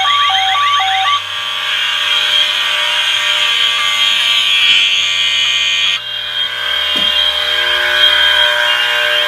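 Many fire alarm horns, sirens and speaker tones from a collection of fire alarm panels and notification appliances sounding at once, in a loud, dense mix of overlapping tones. In the first second a hi-lo two-tone pattern and repeating sweeps stand out. The mix shifts several times as individual signals start and stop.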